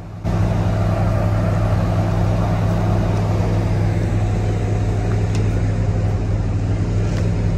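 Diesel locomotive engine running steadily as a low, even hum with a faint higher tone. It comes in suddenly just after the start.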